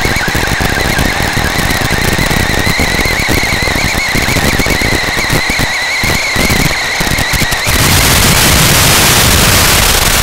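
Whine of an RC car's brushless motor, a high tone wavering up and down with the throttle, over the rattle and rumble of the chassis and tyres on rough dirt. About three-quarters of the way in the whine cuts out and a loud steady static hiss takes over, the sign of the analog FPV video link breaking up.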